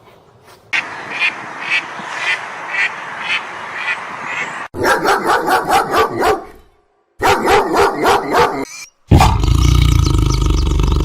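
A run of short animal clips cut together: repeated calls about two a second, then faster runs of calls broken by brief silences, then a loud, steady low sound from about nine seconds in.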